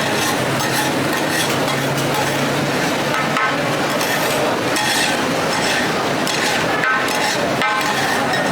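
Food frying in hot oil while being stirred in a metal pan, with light clinks of metal utensils against it.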